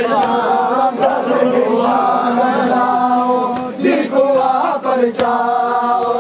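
Group of men chanting a Muharram noha in chorus, many voices holding long, drawn-out sung notes together. A couple of sharp knocks cut through about four and five seconds in.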